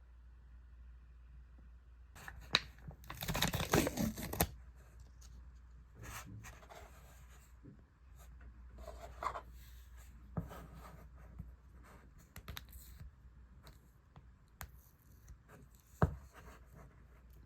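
Close-up handling noise: a tearing or rustling stretch lasting about two seconds near the start, then scattered small clicks and rustles, and one sharp click near the end, over a faint steady hum.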